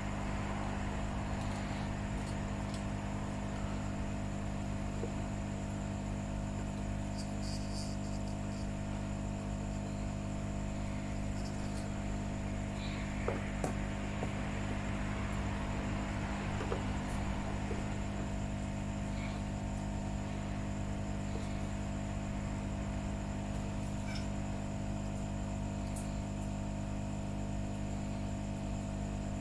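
Steady electrical mains hum made of several fixed tones, with a few faint ticks and taps of small tools.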